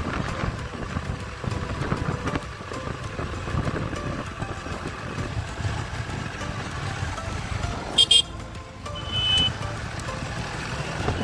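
Wind rush and road noise from a TVS Apache RTR 200 4V motorcycle riding along, picked up by a helmet-mounted mic. A vehicle horn honks in two short blasts near the end, followed a second later by a briefer toot.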